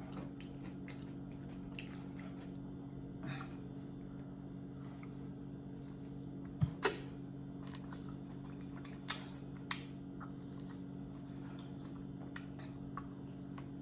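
Quiet chewing, with a handful of short, sharp mouth clicks and smacks scattered through, over a steady low hum.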